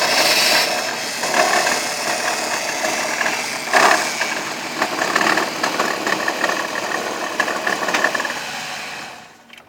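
A 1997 Ford Taurus running with the transmission in gear, with a strange grunting, rattly noise in irregular surges, the strongest about four seconds in; in park there is no such sound. The noise fades out near the end.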